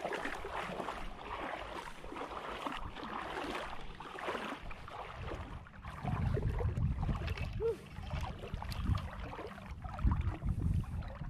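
Shallow seawater sloshing around the legs of someone wading, with wind buffeting the camera microphone. It comes in low gusty rumbles from about six seconds in.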